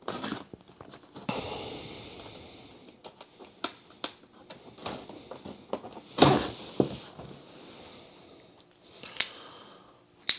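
Box cutter slitting packing tape on a cardboard box, a drawn-out scraping hiss, with the blade and cardboard clicking and scraping; about six seconds in comes a louder rustle as the cardboard flaps are pulled open.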